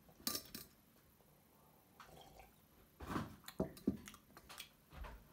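Faint, scattered clinks and knocks of a stainless steel camp mug being handled and set on a table, with small liquid sounds.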